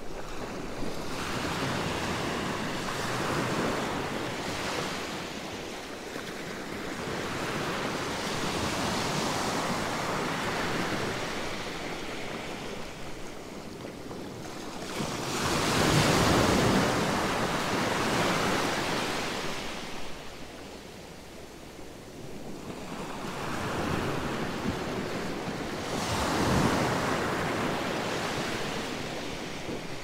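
Gentle sea waves breaking against rocks and washing up a rocky beach, swelling and fading in slow surges. The loudest break comes about halfway through, with another near the end.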